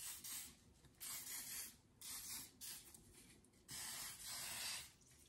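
Aerosol hair oil sheen spray can hissing in about five short bursts. The last burst, near the end, is the longest at about a second.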